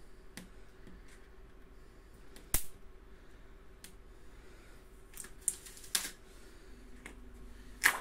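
Plastic protective foil being peeled off a new fridge door and crumpled: scattered crinkles and sharp snaps, the loudest about two and a half seconds in, around six seconds in, and near the end.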